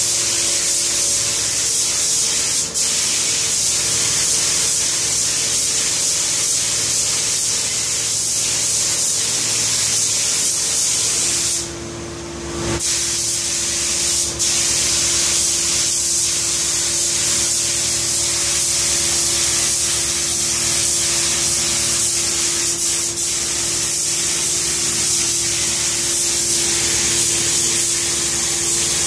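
Compressed-air gravity-feed spray gun hissing steadily as it sprays a top coat of paint. The hiss cuts out briefly near the middle, and a steady hum runs underneath.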